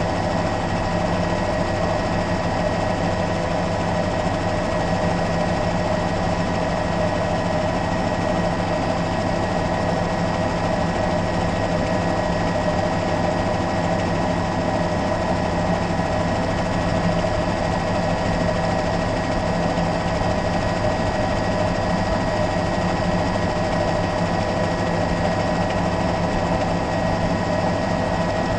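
Steady drone of a helicopter's engine and rotor, heard from on board, with several constant whining tones over a dense rumble.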